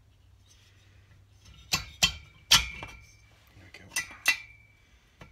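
BSA Fury's alloy twin-cylinder barrel block clinking and knocking against its studs and the crankcase as it is worked down over the pistons. About five sharp metallic knocks, the loudest about halfway through, each leaving a short ring.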